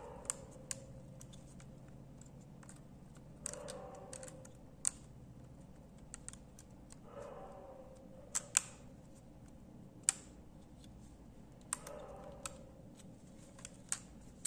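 Scattered small sharp clicks and taps, a few louder than the rest, with soft handling rustles in between, as parts and connectors are pressed into the opened frame of a Redmi Note 7 Pro during reassembly.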